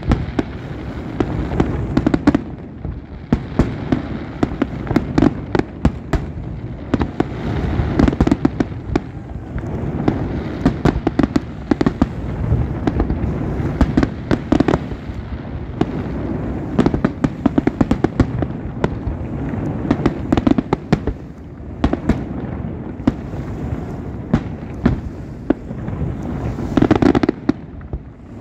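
Aerial fireworks display: many sharp bangs and crackles in quick succession over a continuous low rumble.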